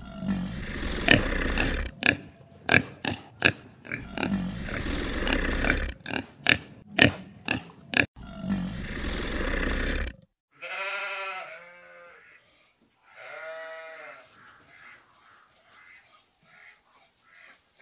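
Animal sounds: about ten seconds of rough, noisy snuffling in long stretches broken by short quick strokes, then two drawn-out pitched calls a couple of seconds apart.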